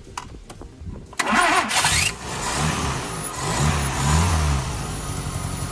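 Toyota 2E four-cylinder petrol engine cranked by the starter and catching about a second in. Its speed rises and falls a couple of times, then settles into a steady idle. This is a start after a new timing belt has been fitted and the ignition timing set.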